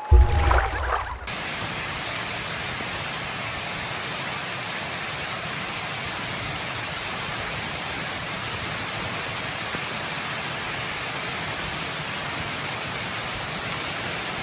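Music ends abruptly about a second in, followed by a steady, even rushing hiss at constant level.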